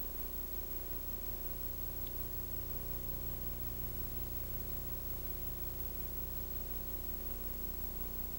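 Steady background hiss with a low hum and faint steady tones: the noise floor of a multi-generation VHS recording.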